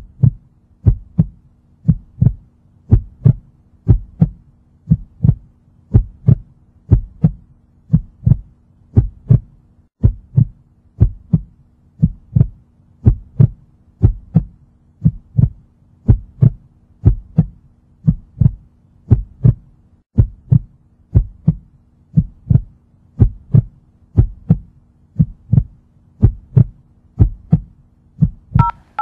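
Slow, steady heartbeat sound effect, a double thump about once a second, over a faint low hum. Right at the end, telephone keypad tones begin.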